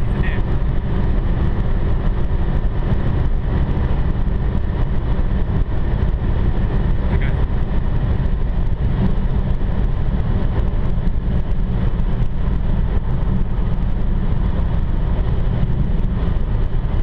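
Steady in-cabin noise of a Renault Mégane RS 265 cruising at motorway speed: a constant low drone of engine and tyres on the road surface.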